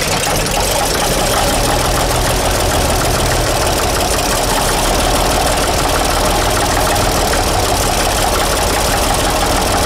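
Case 401 six-cylinder diesel tractor engine running steadily just after firing up on a cold start, following grid-heater preheating.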